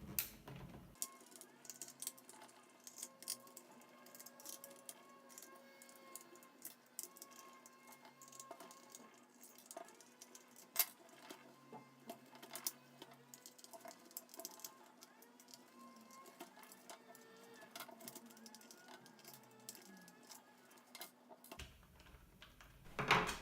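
Irregular small clicks, taps and rattles of a screwdriver, screws and plastic parts being handled while an RC truck's chassis is taken apart, under faint background music.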